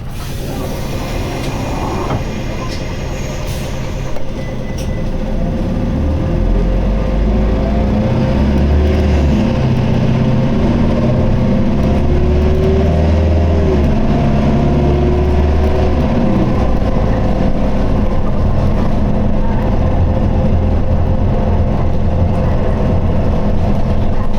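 Isuzu Erga city bus's diesel engine heard from inside the bus, pulling away and revving up, dropping and climbing again as it shifts gears. A steady hum runs underneath.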